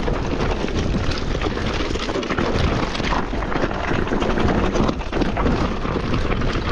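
Electric mountain bike on a fast descent, its tyres crunching over loose, dry rocks and the bike rattling with frequent knocks, under constant wind rumble on the microphone.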